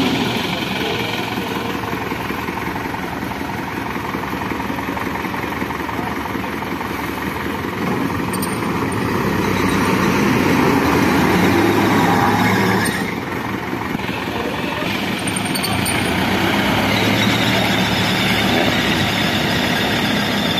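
Tata Motors pickup's engine running hard under load while the truck is stuck in mud. It rises to its loudest about ten to twelve seconds in, then eases off suddenly about thirteen seconds in.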